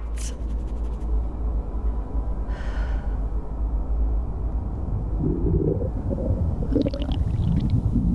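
Deep, continuous rumbling drone from a horror film's sound design, with a short hiss about two and a half seconds in, joined about five seconds in by low, warbling, voice-like sounds.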